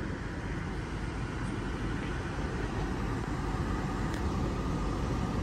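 Steady hum and hiss inside the cabin of a 2021 Dodge Journey SXT with the vehicle running at rest.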